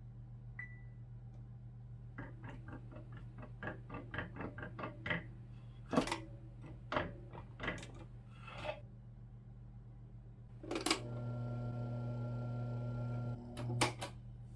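Electric fan being handled: a run of quick plastic clicks and knocks, then a click and a steady motor hum for about two and a half seconds, cut off with a few more clicks.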